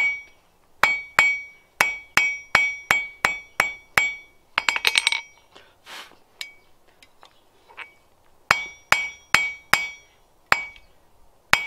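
A hand hammer strikes hot steel held on a blacksmith's anvil, each blow ringing sharply, while the tapered tip of a bar is forged. There is a run of about ten blows at roughly three a second, then a quick flurry of light taps. After a short pause come a few more blows near the end.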